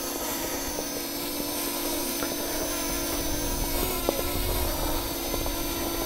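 Parrot Anafi quadcopter's propellers whirring in flight: a steady buzzing hum with a higher whine that wavers slightly in pitch.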